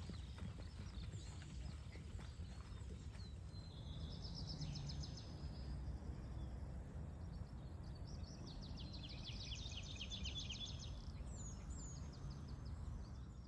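Low, steady rumble of wind on the microphone, with a few faint hoof clops of walking horses fading in the first second. A small songbird sings two rapid trilled phrases, one about four seconds in and a longer one around nine to eleven seconds in.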